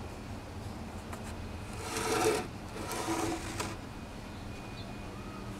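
Plywood scraping and sliding against plywood as a cut-out hexagon piece is worked loose from its opening: two rough scrapes, about two seconds in and again about a second later, over a steady low hum.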